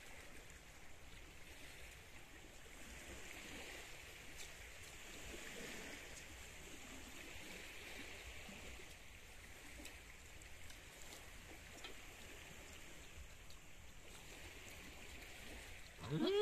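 Faint, steady wash of water, swelling and easing slowly, with a few faint clicks.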